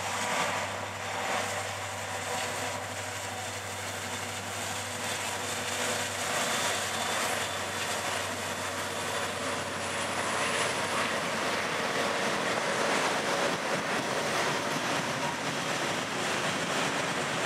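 Freight train passing at steady speed: the low hum of the diesel locomotives fades over the first few seconds, then the freight cars roll by with steady wheel and rail noise that grows a little louder.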